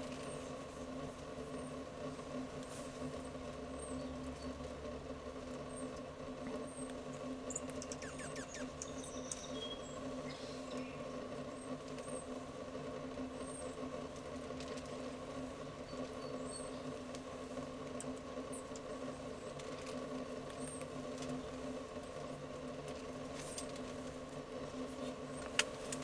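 Light taps of a male downy woodpecker pecking at a branch, including a few quick clicks and one sharper tap near the end. Under them runs a steady hum, and faint short high chirps come now and then.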